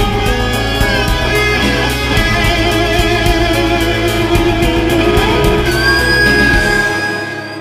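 Background music with electric guitar over a steady beat; the drums and bass drop out near the end and the music fades.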